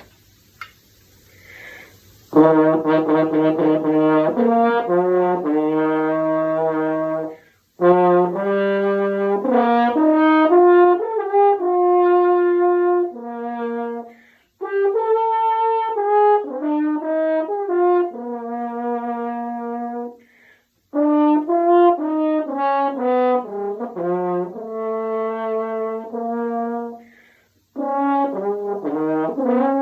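A French horn played solo: a melody of held and moving notes in several phrases, broken by short pauses for breath, starting about two seconds in.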